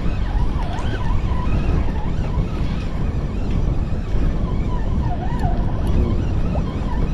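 Wind buffeting the microphone in a steady low rumble, with faint wavering tones in the background.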